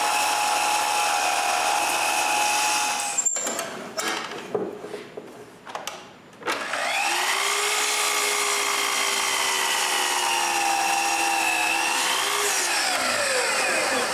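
Bandsaw running steadily, then switched off about three seconds in, with a few knocks and handling sounds. About halfway through it is started again, its pitch rising as the motor spins up. It runs steadily, then winds down near the end as it coasts to a stop.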